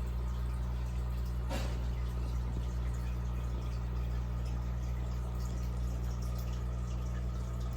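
Aquarium running steadily: a constant low hum with faint trickling water over it, the sound of the tank's filter. A single faint click about a second and a half in.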